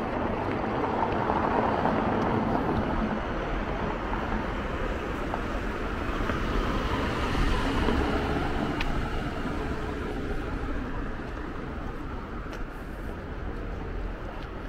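City street traffic: motor vehicles passing, the noise swelling as one goes by near the start and again about halfway through.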